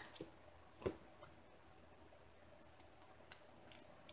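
Near silence broken by a few faint clicks and taps of stiff diamond-painted cards being picked up and handled, one a little louder about a second in and several small ones near the end.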